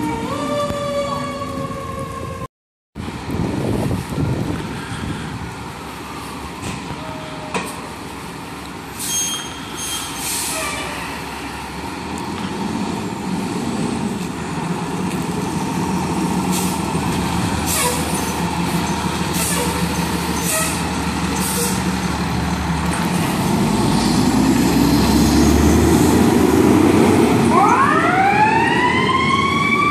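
Fire truck siren wailing, cut off abruptly after about two seconds. Then a fire ladder truck's diesel engine idles with several short hisses of air from its brakes, revs up as the truck pulls out, and near the end its siren winds up in a rising wail.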